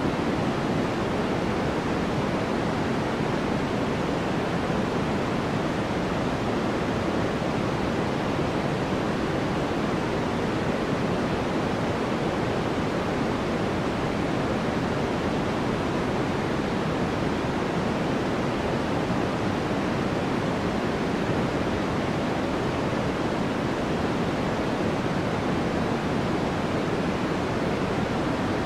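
Steady, unbroken noise of the white-noise kind used as a focus background, even throughout with no separate events and heavier in the low and middle range than in the treble.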